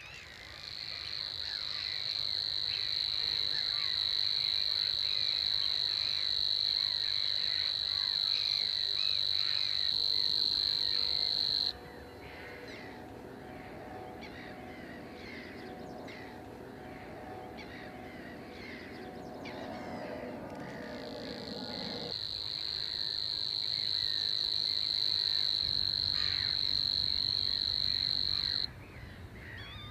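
Savi's warbler singing its long, even reeling trill. It runs for about eleven seconds and stops abruptly, then starts again after about nine seconds and reels for eight seconds more before cutting off near the end. Other small birds call faintly in the background.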